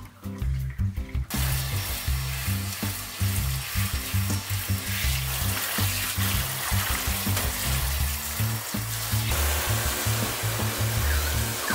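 Water spraying from a hand-held shower head, an even hiss that starts about a second in. Near the end it gives way to water running from a spout into a bathtub. Background music with a steady beat plays throughout.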